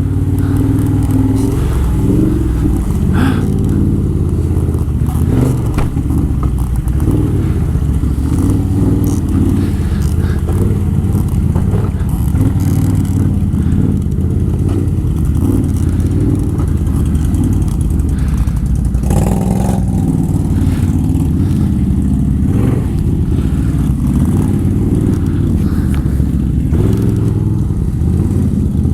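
Can-Am Outlander 1000's Rotax V-twin ATV engine running steadily under load off-road, with a few knocks and scrapes from the machine working over rough ground.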